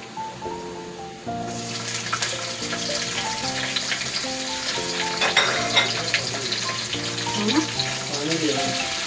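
Garlic and green capsicum sizzling in hot oil in a nonstick wok, growing louder about a second in, with clicks of a plastic spatula stirring against the pan. Background music plays throughout.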